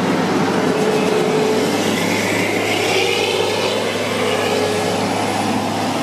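New Holland combine harvester passing at close range, its diesel engine and machinery making a steady drone with a constant low hum.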